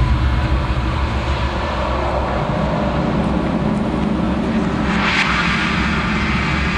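Dark horror ambience: a steady low rumbling drone under a haze of hiss, with a noisy swell that builds to a peak about five seconds in and then fades.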